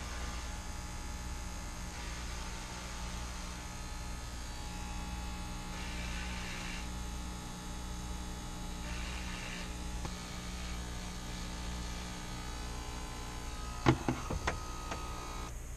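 Corded electric hair clippers buzzing steadily as they cut through bundles of long hair, with a rougher rasp now and then while the blades bite through the hair. A few sharp clicks near the end as the clippers are handled.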